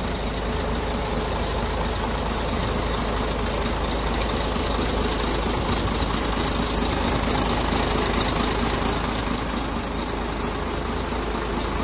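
Scania 124L 420's 12-litre straight-six diesel engine idling steadily.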